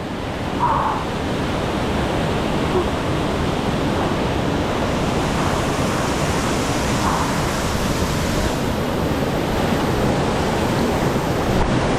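Steady rushing of a waterfall pouring into its plunge pool, an even wash of water noise with no break.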